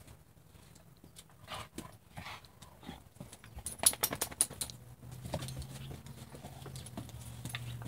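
Two Dachshund–Sheltie mix puppies play-wrestling on concrete, their claws and paws scrabbling and clicking, with a dense, loud flurry of clicks about four seconds in. A low steady hum joins in during the last few seconds.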